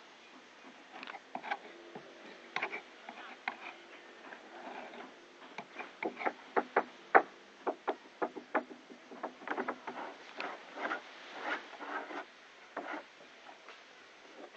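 Sharp, irregular knocks and taps of hand tools working the wooden planking of a boat hull under construction. The blows come thickest and loudest in the middle, sometimes two or three a second.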